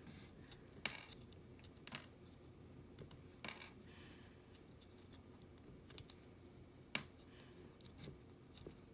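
Faint clicks and small cracks of a Hatchimals toy egg's plastic shell being broken apart by hand, a few sharp snaps spaced irregularly.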